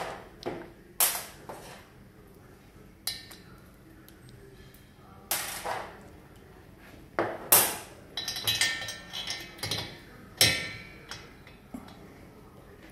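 Metal tools knocking and clinking against a removed aircraft engine cylinder and workbench as a valve-spring compressor is picked up and fitted. The sharp knocks are spaced irregularly, with the loudest about seven and a half seconds in and a quick run of small clinks just after.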